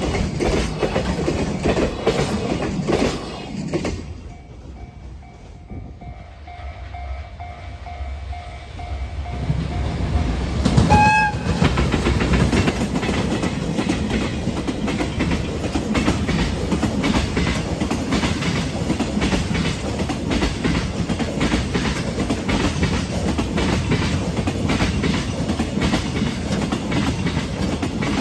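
Freight train wheels clattering over rail joints in a steady clickety-clack that dies away about four seconds in, leaving a lull in which a level-crossing warning bell rings faintly. About eleven seconds in a locomotive horn gives one short blast, and the next freight train's wagons come through, beating loudly over the joints.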